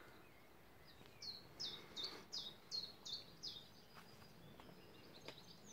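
A bird singing a run of about seven short, high notes, each falling in pitch, at about three a second, over faint outdoor background noise.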